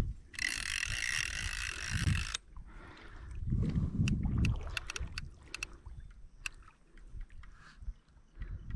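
Magnum 101 centre-pin reel's ratchet buzzing for about two seconds as the hooked carp pulls line off, then slowing to scattered single clicks. A few low dull thumps sound in between.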